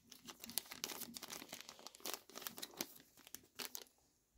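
Small clear zip-lock plastic bag of game tokens crinkling as it is handled, a dense run of crackles that dies away near the end.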